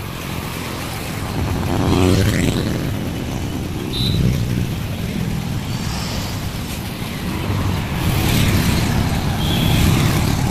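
Road traffic on a city street, with cars and motorcycles passing close by and their engines running steadily. A vehicle passes about two seconds in.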